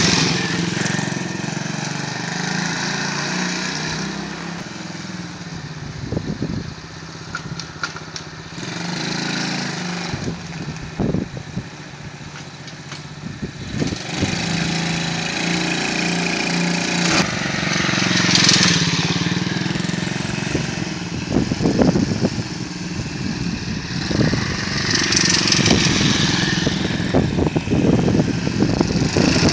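Small engine of a homemade four-wheel micro scooter running as it is ridden along a street, its sound growing louder and fading again as it passes close by several times.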